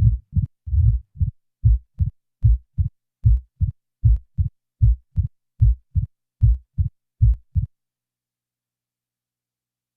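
Simulated heart sounds of mitral stenosis beating about 75 times a minute: each beat a loud first sound followed closely by a second sound and opening snap, with the diastolic murmur removed. The beats stop suddenly about three-quarters of the way through.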